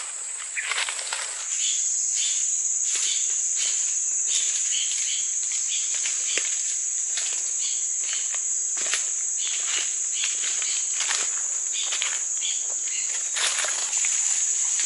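Steady, high-pitched drone of tropical forest insects, which drops slightly in pitch about a second and a half in, with irregular crunching footsteps through dry leaf litter and twigs.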